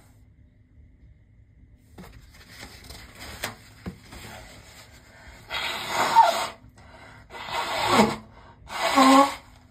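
A person blowing their nose hard three times in a row, each blow about a second long with a wavering honk in it, after some soft rustling.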